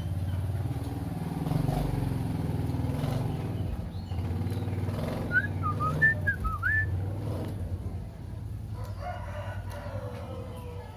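A motor engine runs steadily, the loudest sound, with a short phrase of a few bending whistled notes from a sooty-headed bulbul about five to seven seconds in.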